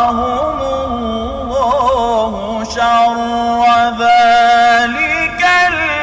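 A man reciting the Quran in the melodic tajweed style, drawing out long notes with wavering ornaments.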